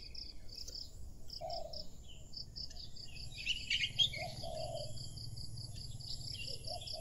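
Crickets chirping in a steady pulsing rhythm, about five chirps a second, with a short flurry of higher chirps about halfway through.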